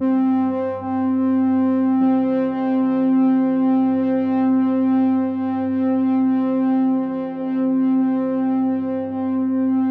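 Background music: a loud, sustained synthesizer chord of steady held tones that comes in suddenly, with the lower notes shifting about two seconds in.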